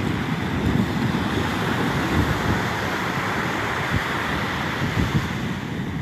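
Small waves washing up the beach, with wind buffeting the phone's microphone in irregular low rumbles.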